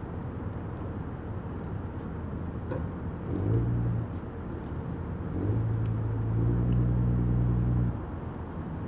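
Harbour ambience: a steady low rumble. A low droning hum swells up briefly about three and a half seconds in, then again for about two and a half seconds from five and a half seconds, and cuts off suddenly near the end.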